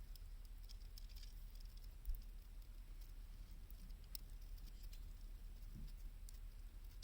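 Faint crackling of a wood campfire: scattered small sharp snaps over a low steady rumble, with a single dull thump about two seconds in.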